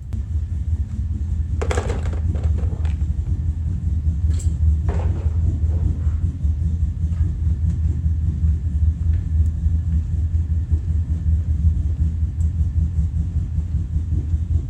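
A loud, steady low rumble of a machine running, switched on right at the start and off right at the end, with a few sharp metallic clicks in the first five seconds.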